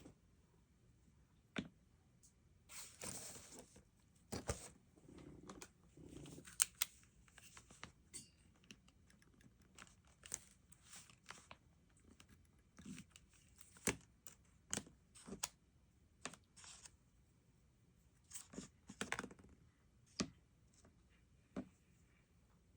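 Stationery being handled on a desk: scattered small taps and clicks with a few short rustles of paper.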